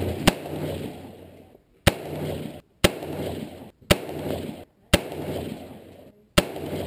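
Rifle gunfire at an outdoor range: about six sharp shots, roughly a second apart, each followed by a short echo.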